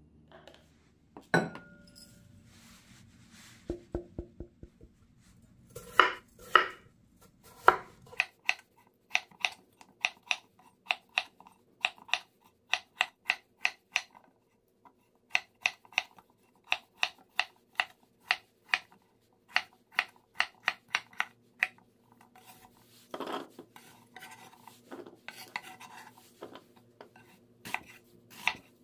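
Kitchen knife chopping peeled potatoes on a wooden cutting board: a long run of sharp, even knocks about twice a second. A few louder clacks come in the first few seconds, and there is a brief shuffling clatter a little before the end.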